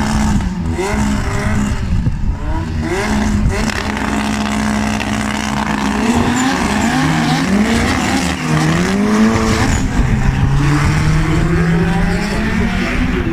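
Two turbocharged Opel drag cars, one with a heavily boosted C20LET 2.0-litre turbo four, held at steady revs on the start line. About six seconds in, the engine note swings up and down repeatedly as they launch and shift, then settles into a steadier, lower note as they run down the strip.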